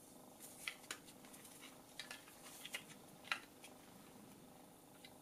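A handful of faint, light clicks and ticks as gloved hands turn over two small pressure-sensor modules with metal frames and circuit boards, the sharpest click about two-thirds of the way through.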